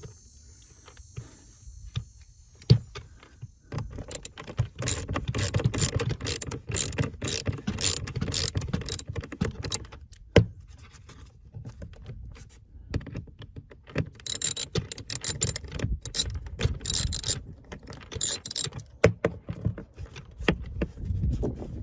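A ratchet clicking in quick runs as small set screws are turned out of a car door's interior handle assembly. There are two spells of rapid clicking, one a few seconds in and one later on, which is brighter and sharper.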